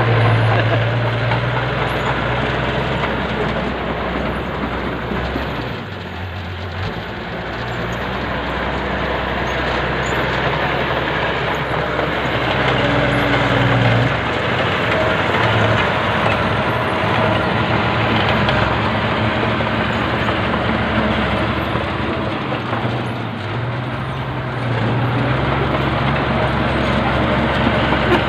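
Bulldozer's diesel engine running hard under load, its pitch stepping up and down as the machine works, over a steady clatter of the crawler tracks and blade. The engine eases briefly twice, about six seconds in and again near the end.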